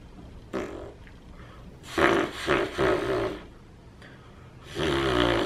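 A man blowing raspberries into a baby's neck in short spells: once about half a second in, a longer run around two seconds in, and again near the end. The baby's delighted voiced noises mix in.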